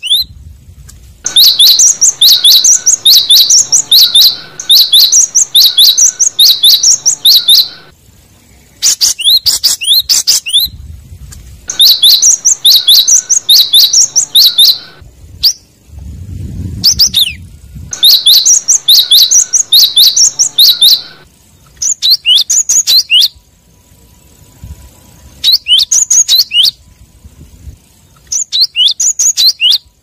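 Cinereous tit (gelatik batu) singing: bouts of a fast, repeated high two-note phrase, about two phrases a second, broken by short pauses. It is a territorial song used to lure rival tits. A low rumble sits under the song about sixteen seconds in.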